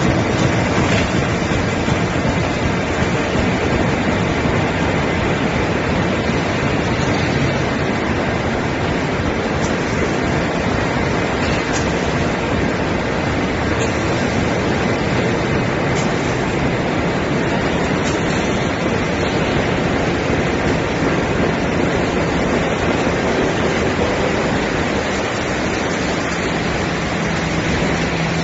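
Corrugated carton-making machinery running steadily: a loud, even mechanical noise with faint ticks about every two seconds.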